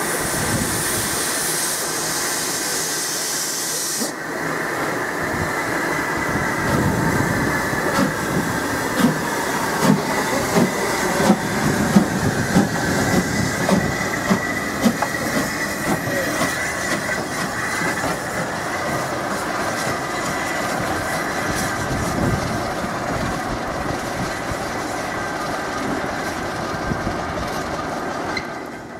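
LMS Ivatt Class 2MT 2-6-2 tank steam locomotive moving along the platform. A loud hiss of steam for the first few seconds cuts off suddenly, then comes a steady rumble with irregular clanks and knocks from the wheels and running gear over the rails.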